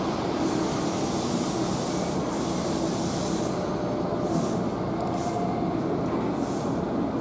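Hanshin 1000 series electric train pulling into an underground station platform and slowing to a stop, with a steady rumble of wheels on the rails. Two brief, thin, high-pitched squeals come near the end.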